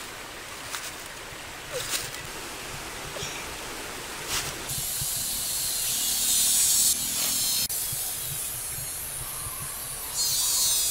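Steady high hiss of outdoor ambience. It turns louder and brighter about five seconds in and drops abruptly a few seconds later.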